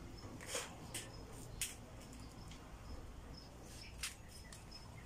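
Faint hand-work noises on a motorcycle, a few short clicks and rustles of parts being handled, over a faint high chirp that repeats steadily in the background.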